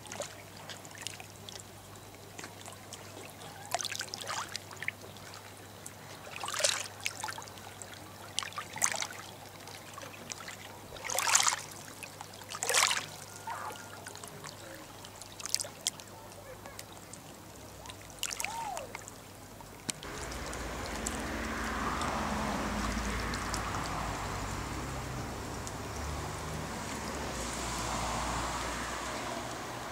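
River water lapping and splashing at the bank in short, irregular bursts over a steady low hum. About twenty seconds in, this gives way to a louder, even outdoor hiss and rumble.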